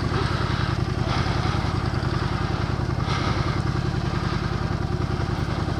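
Honda Shadow 750's V-twin engine running steadily at low revs as the motorcycle rolls along at walking pace.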